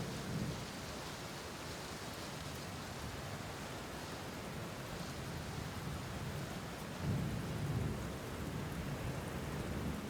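Steady rain falling, with a low roll of thunder about seven seconds in.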